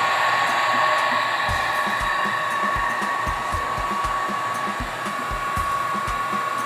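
Handheld heat gun running steadily: a rush of blown air with a steady whine, heating the glued-in battery cells to soften their adhesive. Irregular low thumps sound under it.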